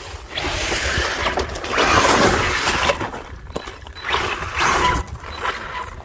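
Arrma Senton 3S brushless RC monster truck driven hard in snow, its motor and drivetrain whining and the tyres spinning and spraying snow in two bursts of throttle: a long one loudest about two seconds in, and a shorter one around four to five seconds in.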